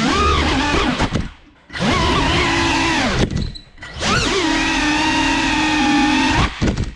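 Brushless motors and propellers of a GEPRC CineLog 35 cinewhoop drone whining, the pitch rising and falling with the throttle. The sound drops away twice as the throttle is cut, comes back, and stops suddenly near the end.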